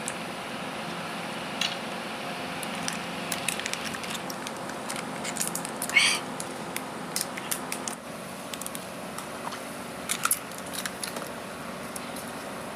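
Scattered small clicks and crackles from people drinking out of thin plastic cups and handling them, over a steady background hum. One short, louder squeaky sound comes about six seconds in.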